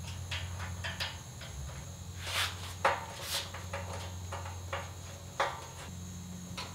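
Scattered clicks, knocks and short scrapes of a steel weld table top and its brackets being handled and fitted onto a folding tubular steel work stand, over a steady low hum.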